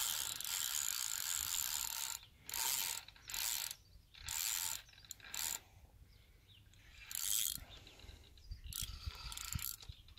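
Fishing reel clicking in bursts while a hooked carp is being played: one run of about two seconds at first, then a series of short bursts with pauses between them.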